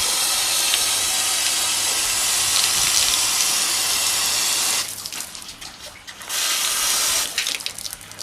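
Running water from an open tap, splashing steadily, then shut off just before five seconds in. It runs again for about a second after six seconds, then only dribbles.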